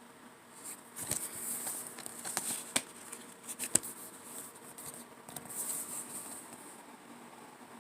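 A DVD and its plastic packaging being handled: rustling and crinkling with several sharp clicks, the loudest about four seconds in.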